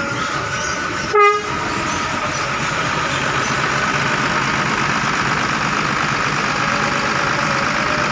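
Bus engine running steadily, with one short, loud horn toot about a second in.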